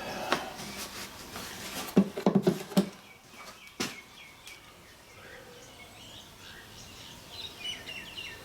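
Handling noise while gear oil is added to a crusher machine: a quick cluster of knocks and clicks about two seconds in and a single click a second later. Small birds chirp near the end.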